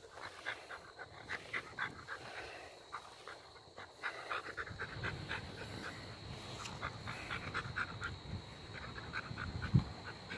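Border collie panting quickly and softly while rolling on its back in the grass.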